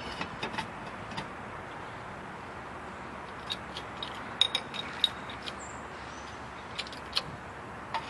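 Light metallic clinks and taps, with a few sharper ones about four to five seconds in, over a steady background hiss: metal gear being handled under a jacked-up car.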